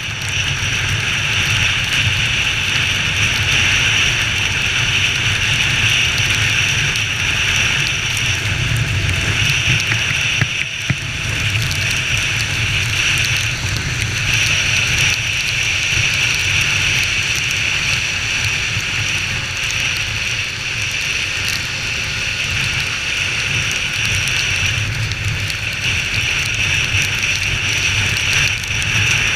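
Honda XR 250 Tornado's single-cylinder engine running under way as the motorcycle is ridden, under a steady hiss of wind and rain. The sound dips briefly, with a single click, about eleven seconds in.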